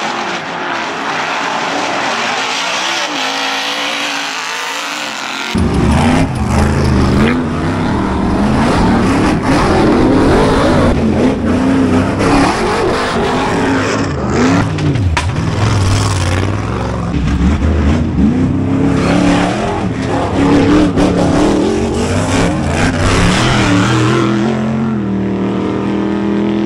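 Ultra4 off-road race buggies' engines revving hard, their pitch rising and falling with the throttle. For about the first five seconds the sound is thin with no bass, then it turns full and loud, and near the end it settles to a steady note.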